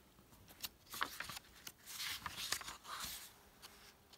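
Brittle paper pages of an 1850s cookbook being turned by hand: several crisp rustles and flicks.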